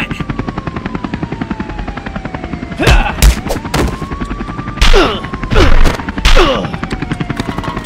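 Action sound effects: a siren wailing slowly up and down over a fast, steady rattle, with several loud impacts and falling cries in the middle.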